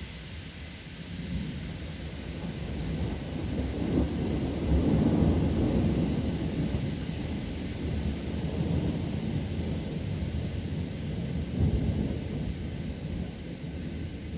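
Thunder rumbling, with a sharp crack about four seconds in, a long rolling peak just after it and another clap near the end, over a steady hiss of rain.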